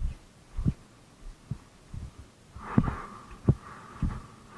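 A person breathing, with irregular low thumps a fraction of a second to a second apart.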